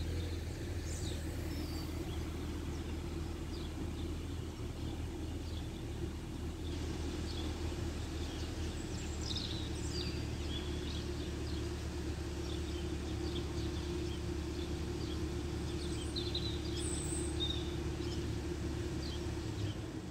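Small birds chirping now and then over a steady low rumble of background traffic and wind.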